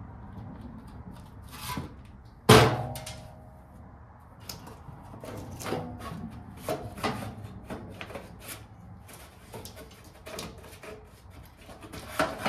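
Metal hand tools clinking and clanking on a riding mower's steel seat pan while bolts are worked with a wrench: a string of light clicks and knocks with short metallic ringing, and one loud clank about two and a half seconds in.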